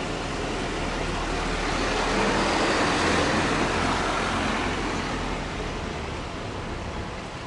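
A small truck driving past close by. Its tyre and engine noise, with a low hum, swells to a peak about three seconds in and then fades away.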